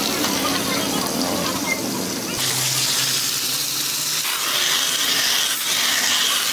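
Water from a hose pouring and splashing onto a car radiator's core. About two and a half seconds in it turns into a harder, hissing spray jetting through the fins.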